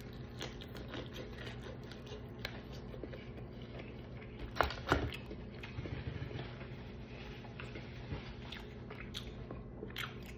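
A person biting and chewing crispy fried chicken close to the microphone: wet mouth sounds and small crunches, with a few louder clicks about halfway through. A steady low hum sits underneath.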